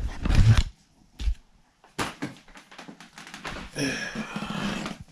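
A cardboard shipping box being handled and opened: rustling, a knock and sharp clicks, then a longer scraping sound of packaging near the end.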